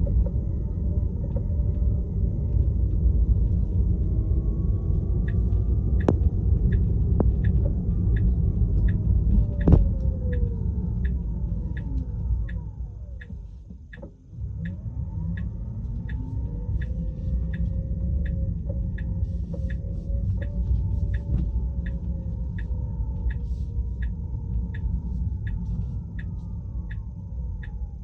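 Road rumble inside a Tesla's cabin while driving, with the electric motor's whine falling as the car slows nearly to a stop about halfway through, then rising again as it pulls away. A steady ticking runs about twice a second from about five seconds in. A few sharp knocks sound in the first ten seconds, the loudest about ten seconds in: the thump-thump noise present since the car came back from service.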